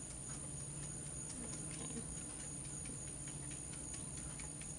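Paintbrush dabbing green acrylic paint onto paper, a string of faint, irregular little ticks, over a steady electrical hum.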